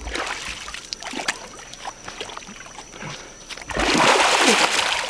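Water splashing and sloshing in shallow river water as an arapaima is grabbed and wrestled by hand. Small splashes come first, then a loud splash near the end that lasts about a second.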